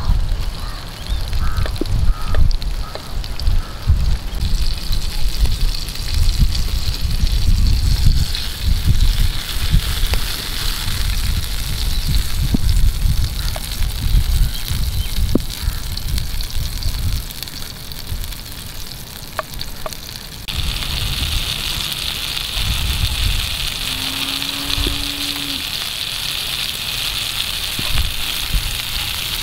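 Onions and tomatoes sizzling in oil in a pan over a wood fire, over a heavy, uneven low rumble. The sizzle grows louder and steadier about two-thirds of the way through.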